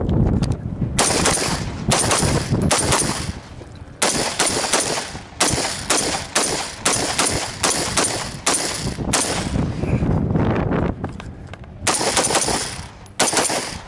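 AR-15 rifle fired semi-automatically in a fast string of sharp shots, about two a second. There is a pause of about three seconds, then a few more shots near the end.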